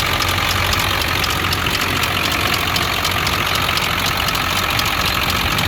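Ford 7.3 Power Stroke turbodiesel V8 idling steadily with a rapid, even clicking over the engine note. The owner found the oil lower than it should have been.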